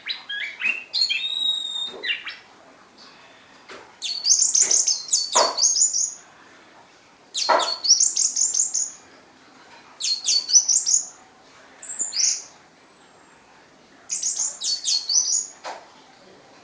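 Orange-headed thrush singing in short phrases of rapid, high chirping notes, about five phrases with brief pauses between them.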